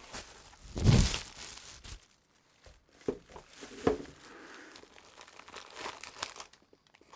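Plastic packaging wrap and a zip bag crinkling as they are handled, with a louder rustle and bump about a second in and a couple of sharp clicks near the middle.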